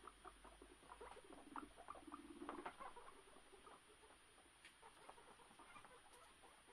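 Guinea pigs scurrying about, a faint quick pattering with a few short calls, busiest in the middle.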